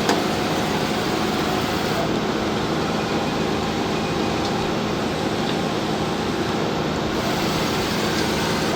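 Steady machinery running noise, an even hum with a few faint steady tones beneath it and no change throughout.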